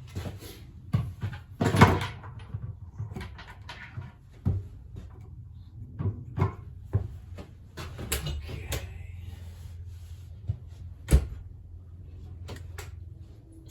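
Scattered knocks, clicks and rattles of hands and tools working on a refrigerator cabinet panel, with two sharper knocks, about two seconds in and near eleven seconds. A steady low hum runs underneath.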